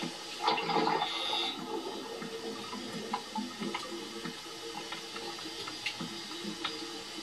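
Steady water noise, heard through a television speaker, swelling louder for about a second about half a second in.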